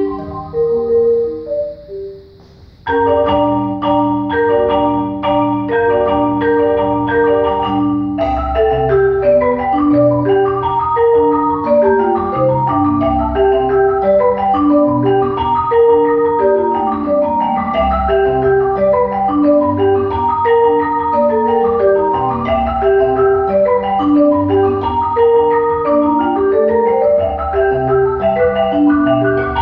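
Two marimbas played together with yarn mallets, a steady stream of struck notes and chords. The playing drops to a brief lull, comes back in strongly about three seconds in, and thickens with low bass notes from about eight seconds on.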